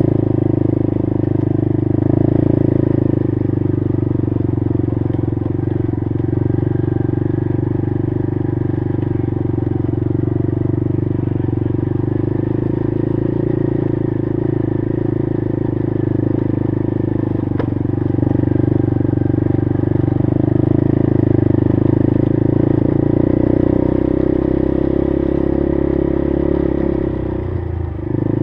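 Honda TRX90 ATV's small single-cylinder four-stroke engine running at a steady throttle while riding a dirt trail, with one sharp tick about eighteen seconds in. The engine note drops briefly just before the end.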